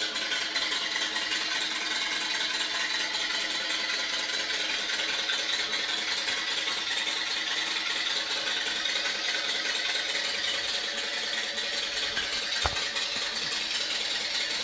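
Steady whirring, rattling noise from a running machine, with one brief knock near the end.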